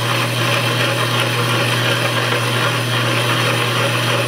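Delta 14-inch wood bandsaw, slowed by a jackshaft belt drive and fitted with a bimetal blade, running and sawing through steel channel. It gives a steady low hum under the even noise of the teeth cutting the metal.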